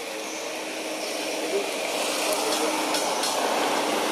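Steady rushing noise of passing motor traffic, slowly growing louder.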